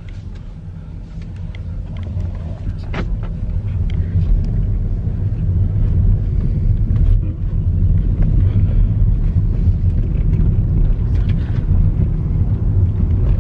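Car driving: a low rumble that grows louder over the first four seconds, then holds steady, with a sharp click about three seconds in.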